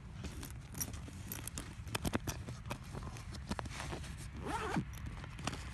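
Irregular clicks, knocks and scraping, with a brief sound sliding down in pitch about four and a half seconds in.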